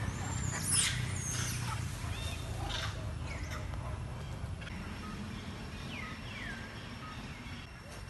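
Wild monkeys giving several short, high-pitched calls that fall in pitch, over a steady low rumble.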